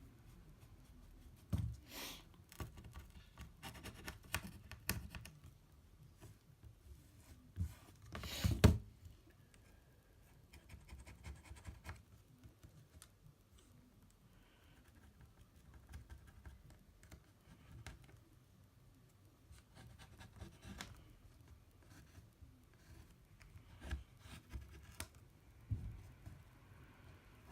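Irregular scratching and rubbing against the iPad mini's frame as it is scraped and wiped clean of old adhesive and dirt, with scattered light clicks and one louder knock about eight seconds in.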